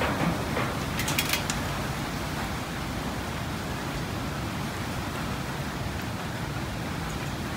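Cats chewing raw chicken from metal plates, with a short run of crisp clicks about a second in, over a steady background hiss.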